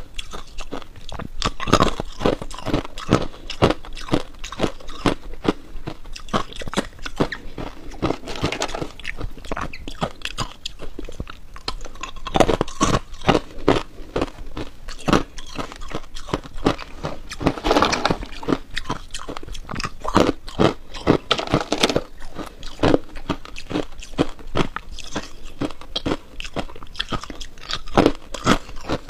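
Hard ice being bitten and chewed close to the microphone: a quick, uneven string of sharp crunches, with heavier bursts of crushing every few seconds as fresh pieces are bitten into.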